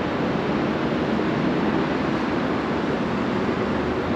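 Steady rushing street noise, an even hiss with no separate events.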